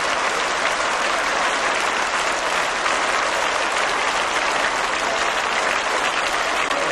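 A large crowd applauding: dense, steady clapping from many hands at once.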